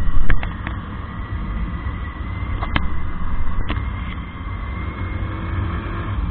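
Motorcycle riding at speed: wind rumble on the microphone over engine and road noise, with a few sharp clicks, the loudest about half a second in.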